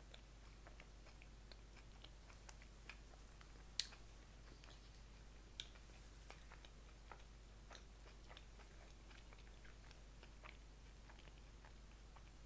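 Faint chewing of food, with scattered small mouth clicks and a sharper click about four seconds in, over a low steady hum.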